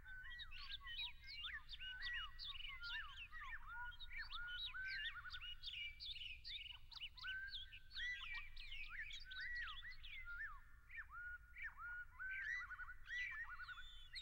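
Several birds chirping and singing together: a dense, unbroken stream of short, quick rising and falling notes, over a faint steady low hum.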